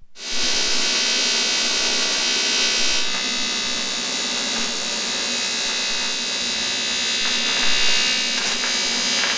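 AC TIG welding arc on aluminium from a STAHLWERK AC/DC TIG 200 inverter welder: a loud, steady electric buzz that starts abruptly as the arc strikes and holds even while the weld is run.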